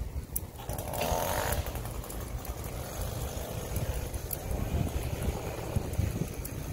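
Wind buffeting the microphone while cycling, a steady irregular low rumble with a louder rush about a second in.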